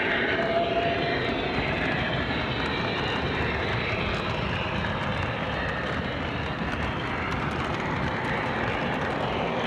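O-scale train running along its track: a steady rumbling noise of the moving train, with a thin steady tone that stops about a second in.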